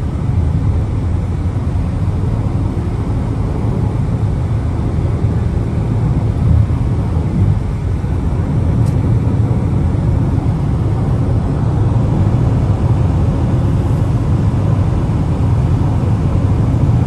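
Steady road noise inside a car's cabin at freeway speed: a low, even rumble of tyres and engine.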